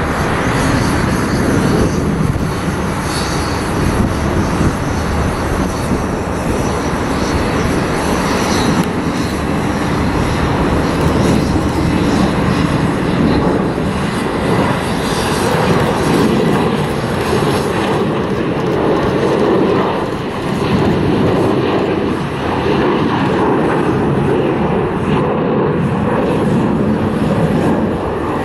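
Jet airliner engines, a loud, steady rumble with slight swells in level.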